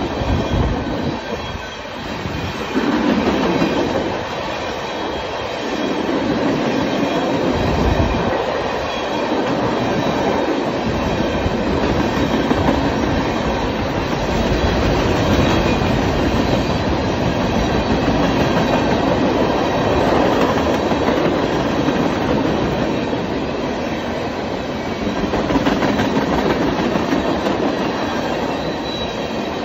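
Railroad tank cars of a freight train rolling past close by: a steady noise of steel wheels running on the rails that dips slightly about two seconds in and swells again shortly after.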